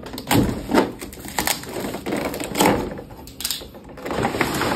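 Box being opened and packaging handled: a series of separate knocks and clicks with rustling in between, busier near the end.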